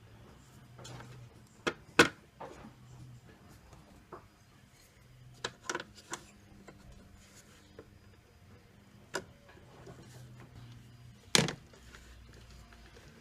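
Scattered sharp clicks and knocks from handling a tumble-dryer door hinge, aluminium with new plastic bushes, while the bushes are fitted; the loudest knock comes about two seconds in and a longer one near the end, over a faint low hum.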